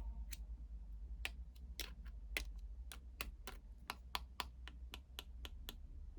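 A run of sharp clicks or taps, roughly three a second, stopping shortly before the end, over a low steady hum.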